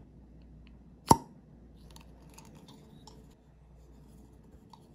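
A single sharp plastic click from a poison-remover suction pump being worked about a second in, followed by faint handling clicks and rustles of the plastic device.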